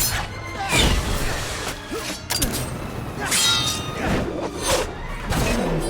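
Action-scene soundtrack: score music under a string of sharp hits, crashes and whooshes, with short vocal cries around the middle and near the end.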